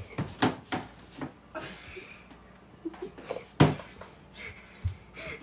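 A series of scattered knocks and bumps from things being handled in a kitchen, the loudest a little over halfway through.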